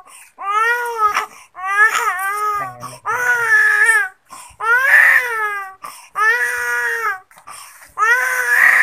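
Infant crying in a run of about six wailing cries, each about a second long, rising and falling in pitch, with short catches of breath between them.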